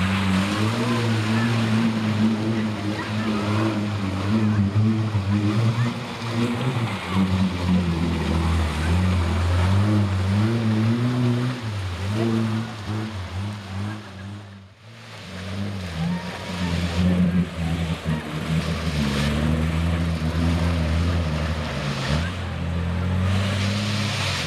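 Jeep Wrangler engine revving up and down under load as it churns through deep mud, with the tires splashing and throwing mud and water. The sound breaks off briefly about fifteen seconds in, then picks up again.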